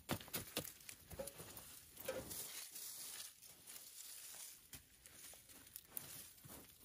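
A wooden stick jabbing and scraping into dry earth, with a few sharp knocks in the first second. Then hands scrape and brush the loosened soil and dry leaves, a scratchy rustle that fades after about four seconds.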